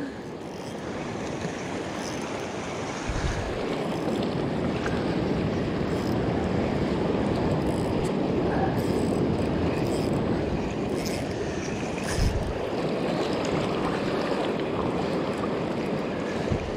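Sea surf washing in and out over shore rocks: a steady rushing that builds over the first few seconds, with a few brief low bumps.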